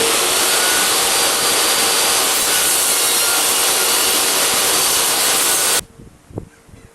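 Steady, unbroken noise of a power tool working wood, cutting or sanding. It cuts off abruptly about six seconds in, leaving a quieter stretch with one light knock.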